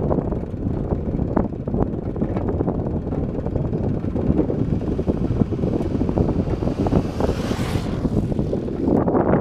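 Wind buffeting the camera's microphone while it moves, a loud, fluttering low rumble. About seven seconds in, a hiss swells and fades away.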